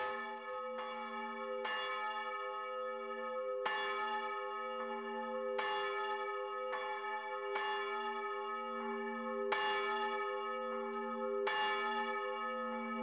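Church bell, the fourth of an eight-bell ring, being swung up, its clapper striking about once a second with the bell's hum ringing on between strokes. The strokes alternate louder and softer, the unevenness that a clapper biased to one side gives.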